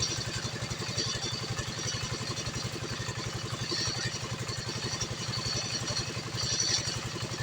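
Small engine idling steadily with an even, rapid low pulse.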